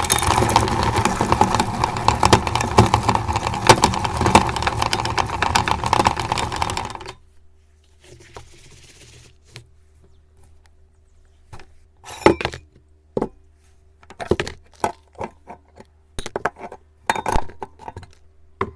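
Meat grinder running and grinding chocolate umbrella candies, a dense crunching over a steady machine drone. It stops abruptly about seven seconds in. After that only a faint low hum and scattered clicks and knocks remain.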